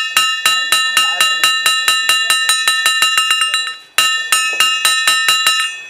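Small metal ritual hand bell rung rapidly, about four or five clear ringing strokes a second, with a brief break just before four seconds in, as used to accompany a funeral offering rite.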